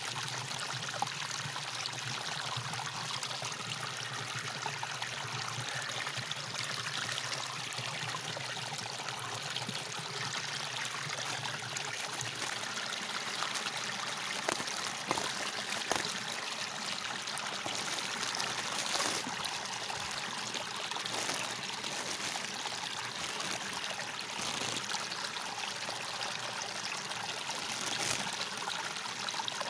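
Water rushing and swirling steadily in a whirlpool vortex. A few short crinkles and clicks from a plastic toy packet being handled, mostly in the middle and near the end.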